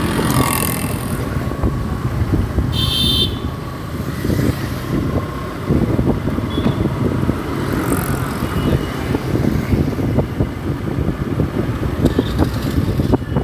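Motorcycle riding through city traffic: a steady engine-and-road rumble with wind buffeting the microphone. A brief high-pitched tone sounds about three seconds in.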